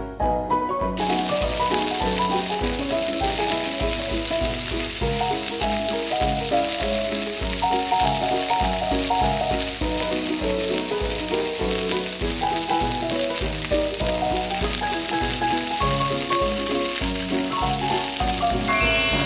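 Hot oil sizzling in a miniature frying pan as a breaded patty fries. The sizzle starts about a second in, as the patty goes in, and then stays steady. A light, bouncy background tune plays over it.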